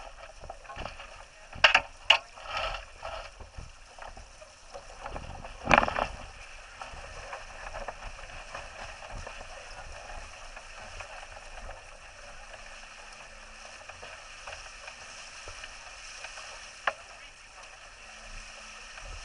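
Water rushing and splashing along the hull of a Laser 4000 sailing dinghy under way, heard from a camera mounted low on the hull. There are a few loud sharp hits in the first six seconds and a short click near the end.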